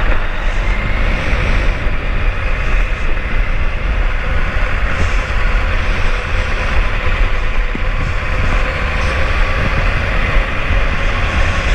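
Sport motorcycle riding at low speed, its engine running steadily under heavy wind rumble on the camera's microphone.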